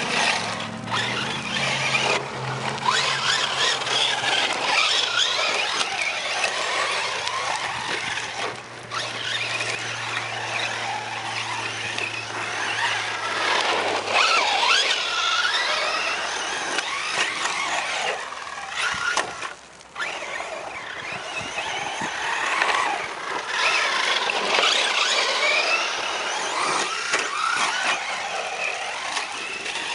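Thunder Tiger EB4 G3 RC truck's stock brushless electric motor whining, its pitch rising and falling again and again with throttle bursts, over the noise of its tyres churning gravel and dirt. A low steady hum runs underneath for the first half and stops about halfway through.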